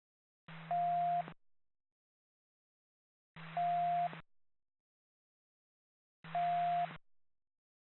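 Police scanner radio giving three short keyed transmissions about three seconds apart. Each is a burst of radio hiss and hum carrying a short steady beep.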